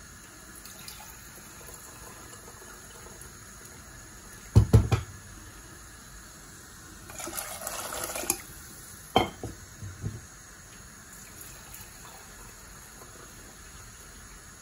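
Two loud knocks about a third of the way in, then a cup of water poured into a metal pressure cooker for about a second, followed by a couple of sharp clinks.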